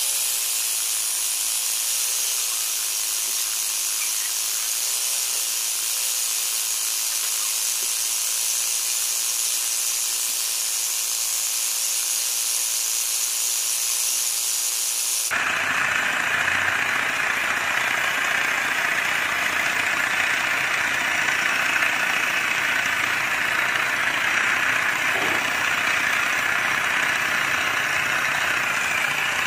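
Homemade piston air compressor, a small DC motor driving a syringe piston, running steadily while pumping air into a balloon. It starts as a high hiss and changes abruptly about fifteen seconds in to a fuller, steady mechanical buzz.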